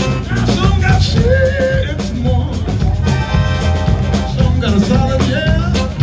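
Live band playing a country-rock number on accordion, saxophone, keyboard and drum kit, with a steady beat.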